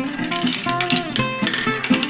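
Background music of plucked acoustic guitar notes.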